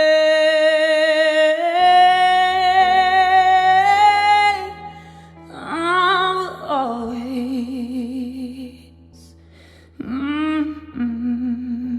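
A pop ballad's closing vocal: a singer holds a long note with vibrato that steps up in pitch twice, then sings a few shorter notes over low sustained keyboard tones.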